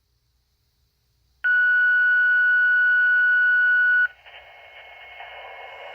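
Fire dispatch radio alert tone over a scanner: one loud, steady beep lasting about two and a half seconds, sounded just before a unit is dispatched. It cuts off into the hiss of an open radio channel.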